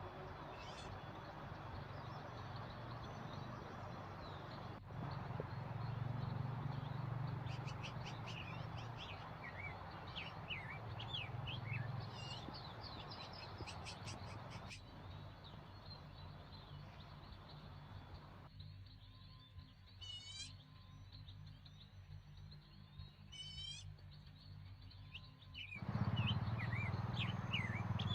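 Forest birds chirping and calling in short repeated phrases over a steady low outdoor rumble. In the later part the rumble drops away for several seconds, leaving two quick trilled calls, then it returns.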